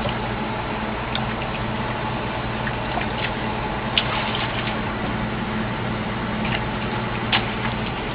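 Water splashing and streaming off an excavator bucket as it is worked in and out of murky water, over the steady hum of the excavator's running engine. A couple of sharp clicks come about four seconds in and again near the end.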